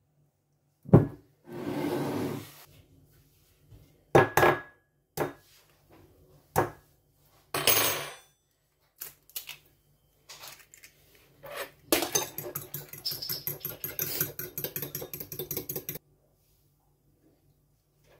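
Kitchen handling sounds: a few knocks and a scrape of dishes on the counter. Then a fork beats an egg in a small glass, with rapid clicking against the glass for about four seconds that stops suddenly.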